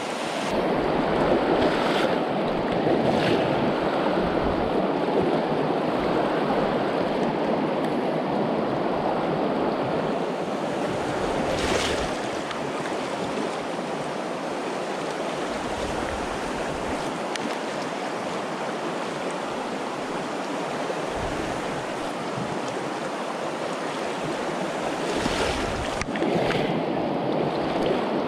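Steady rush of a trout river's flowing water, with a few brief knocks.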